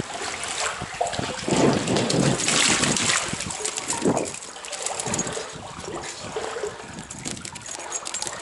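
Stream water running and splashing while a hooked trout thrashes at the surface and is played in, with irregular splashes loudest about two seconds in.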